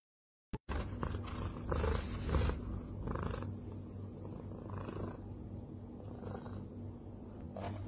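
Grey cat purring close to the microphone, a steady low purr that starts just under a second in, after a brief silence.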